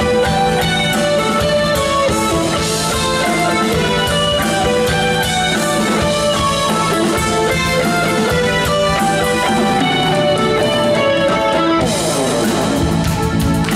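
Live progressive rock band playing an instrumental passage: electric guitar over held keyboard chords, with drums.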